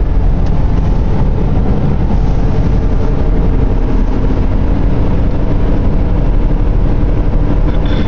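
Steady road and engine noise inside a car cruising at highway speed, mostly a low rumble.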